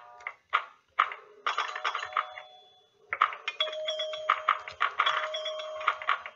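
Bell-like electronic chimes and clinks in quick runs, with a short pause about halfway through.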